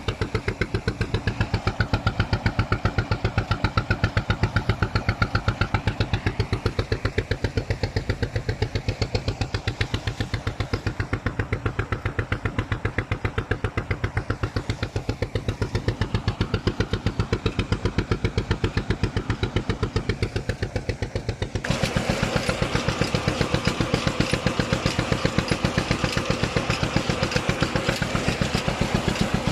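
An engine running steadily with an even, regular beat. About two-thirds of the way through it suddenly becomes louder and brighter.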